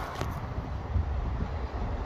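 Wind buffeting the microphone: an uneven low rumble with a faint hiss above it.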